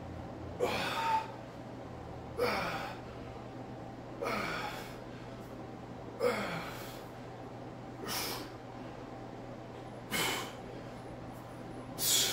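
A man's sharp, forceful breaths, one about every two seconds, exhaled in time with each rep of seated alternating dumbbell curls. A low steady hum runs underneath.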